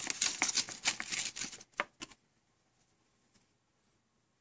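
Cardboard sleeve and clear plastic packaging crackling and rustling as they are pulled apart by hand, for about two seconds, then a couple of clicks and near silence.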